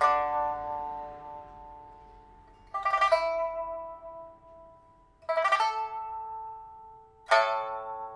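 A Shanghai pipa with a Cochin rosewood body is played slowly, sounding four strummed chords two to three seconds apart. Two of the chords are quick rolled strokes. Each chord is left to ring and fade. This is the instrument's first test-play on a newly fitted soundboard and new frets.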